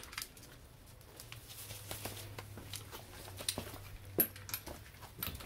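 Faint, scattered clicks and taps of a cordless impact gun being handled and brought up to a car wheel, over a low steady hum.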